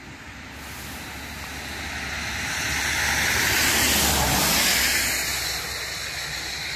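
A car passing on the road. Its tyre and engine noise swells, peaks about four seconds in, and then fades away.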